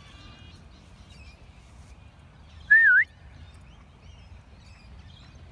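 A single short, loud whistle about halfway through, dipping and then rising in pitch, most likely a person whistling to call a dog back. Faint bird chirps sound in the background.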